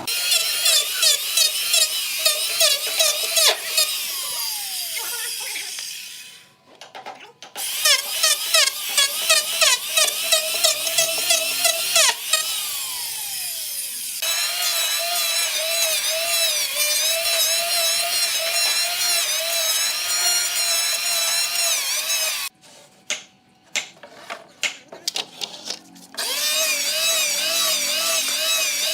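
Handheld electric power tool working wood, its motor whine wavering under load, with quick repeated sharp bites as it cuts. It stops briefly about a quarter of the way in, and again for a few seconds near the end, with only a few knocks in that gap.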